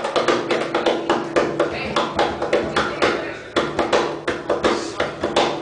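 Rapid, uneven percussive taps and slaps on the wooden body of a double bass, over a held low note, as a percussive break in a gypsy-jazz tune.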